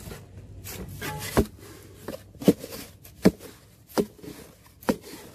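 Shovel blade scraping and jabbing into packed soil under a concrete sidewalk, with dirt dropping, as a tunnel is dug beneath the slab. About five sharp scrapes, roughly one a second.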